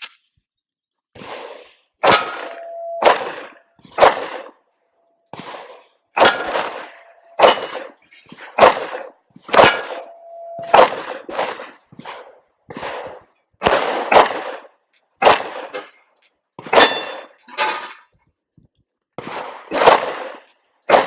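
Gen 2 Glock 23 .40 S&W pistol firing a slow string of shots, about one a second, with a steel target ringing with a held tone after several of the hits.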